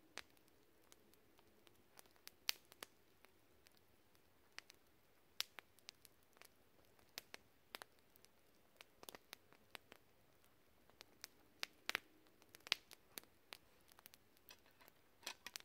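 Wood campfire crackling faintly, with scattered sharp pops and snaps at an uneven pace.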